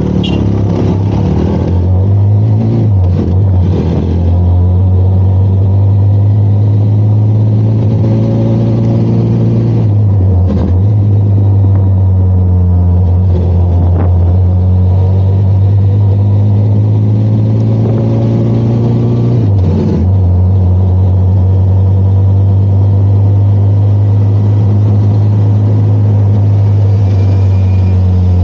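Benelli TRK 502 X motorcycle's parallel-twin engine running steadily under way, with three brief dips in its drone about 3, 10 and 20 seconds in.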